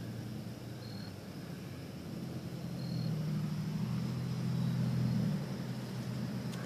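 Low, steady engine-like hum that swells about two seconds in and eases off after about five seconds, with a short high peep twice.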